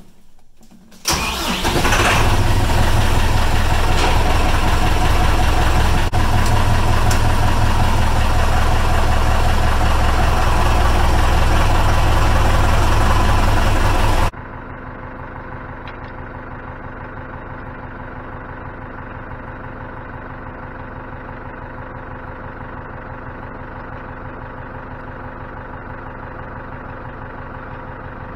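A compact tractor's engine starts about a second in and then runs loud and steady. About halfway through it drops suddenly to a quieter, even idle.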